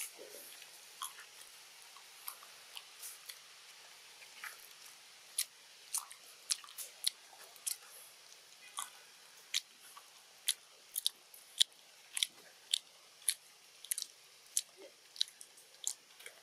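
Sharp crunching clicks of a macaque chewing something hard, one or two a second, sparse at first and steadier in the second half.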